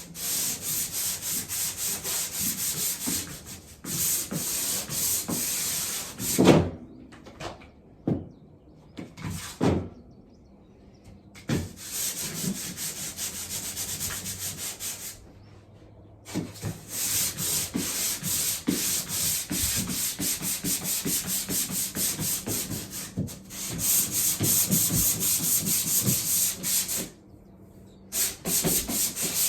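Sandpaper rubbed by hand over cured drywall joint compound in quick back-and-forth strokes, smoothing the final coat of mud. The sanding stops a few times, and a couple of sharp knocks come about a quarter of the way in.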